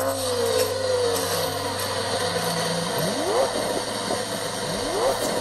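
Car engine sound effect: an engine settling into idle just after starting, then two quick revs, each a rising whine, about three and five seconds in.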